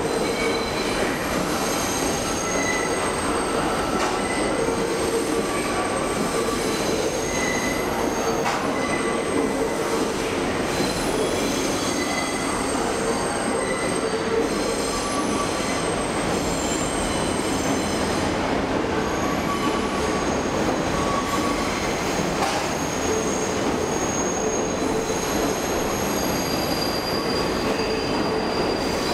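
NYC Subway 6 train rolling through the station without stopping: a steady loud rumble of wheels on rail, with wheel squeal in several high pitches that come and go.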